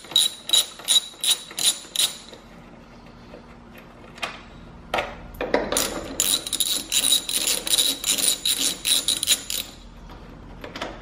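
Hand ratchet clicking as T30 Torx bolts are undone: about four sharp clicks a second for the first two seconds, then a pause broken by a couple of single knocks, then a faster run of clicking for about three seconds.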